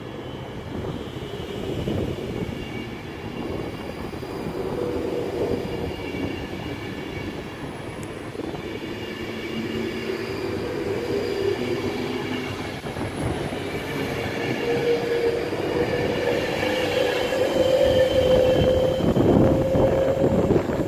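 An electric passenger train moving through the station. Its traction motors whine in several steady tones that slowly rise in pitch as it gathers speed, over a rumble of wheels on rail, and the sound grows louder throughout.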